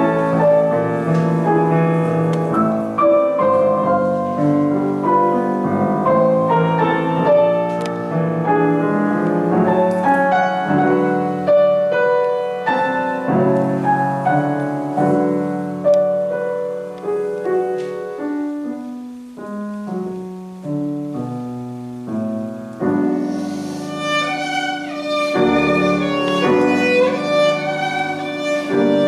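A violin and a grand piano playing classical chamber music live. About two-thirds of the way through, the music thins to a stepwise descending line low in the piano and grows quieter. It then swells again as a high violin line with vibrato comes in above the piano.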